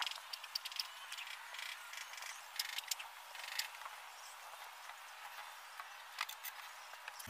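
Faint scattered clicks and light scraping from a thin sheet-metal panel being handled and pressed against a cabinet.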